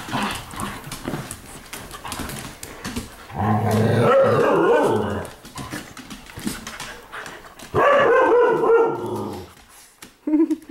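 Husky dogs at play making two long bouts of barking and yowling vocalizing, about three and a half and eight seconds in, with a short yip near the end. Small clicks and scuffles fill the gaps.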